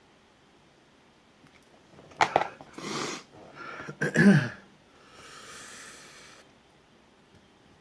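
A man sneezing: a sharp catch of breath, a loud voiced burst with falling pitch about four seconds in, then a long breathy outbreath. It is a reaction to the heat of a ghost pepper he has eaten.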